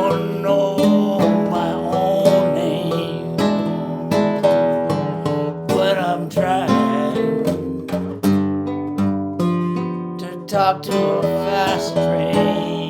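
Acoustic guitar strummed and picked in an instrumental passage of a song, changing chords with a steady rhythm.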